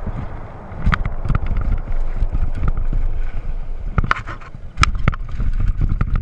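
Mountain bike descending a dirt and gravel downhill trail, heard from a rider-worn GoPro: wind on the microphone and tyre rumble, with sharp rattles and clacks from the bike over bumps, the loudest about a second in and again four to five seconds in.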